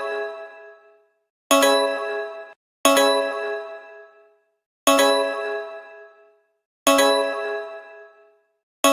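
Emergency alert alarm tone made of a bell-like chime struck over and over: each ring starts sharply and dies away within about a second, repeating about every one and a half to two seconds at an uneven spacing.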